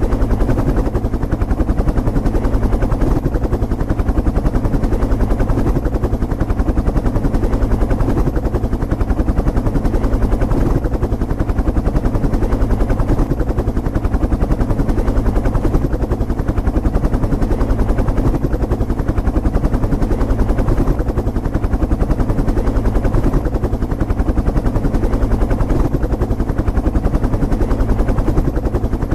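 Helicopter rotor and engine running steadily and loudly, with a fast, even chop from the rotor blades.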